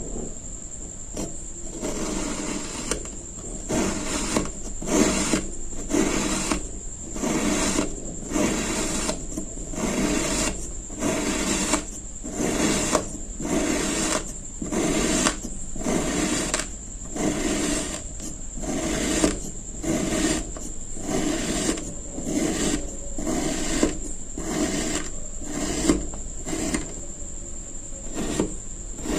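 A knife cutting and scraping through kinetic sand in repeated rasping strokes, about one a second. A steady high-pitched whine runs underneath.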